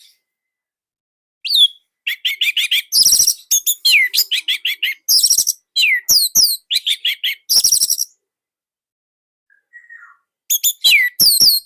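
Orange-headed thrush singing loudly in dense bursts of rapid notes mixed with down-slurred whistles. The song starts about a second and a half in, breaks off for about two seconds, and resumes near the end.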